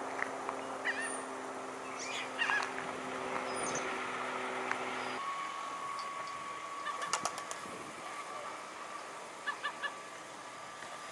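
Outdoor ambience with scattered short bird chirps, including a quick run of three near the end. A steady low hum stops abruptly about five seconds in, leaving a faint steady tone.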